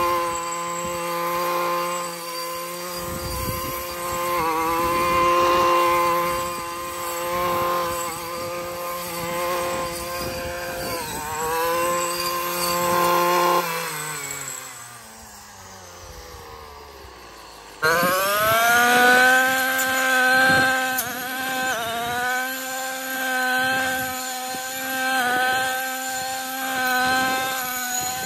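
Husqvarna 128R brushcutter's small two-stroke engine running at high revs, its pitch dipping briefly now and then. About halfway through the throttle is released and the revs fall away for a few seconds. The engine then jumps abruptly back to high revs and runs on to the end.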